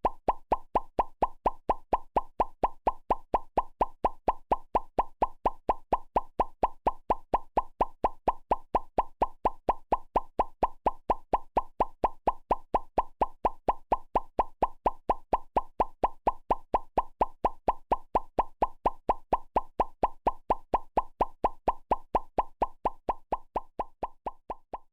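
Cartoon pop sound effect repeating quickly and evenly, about four short plops a second, the pops for hearts popping up on screen. The pops grow fainter near the end.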